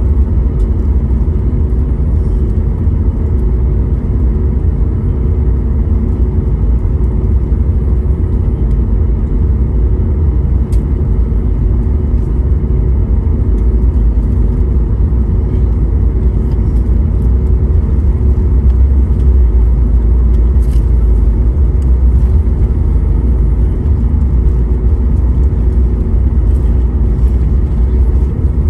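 Loud, steady low engine rumble with a constant droning hum, unchanging throughout.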